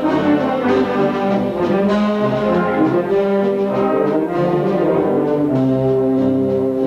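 Spanish wind band playing a pasodoble live, the brass section prominent with held chords.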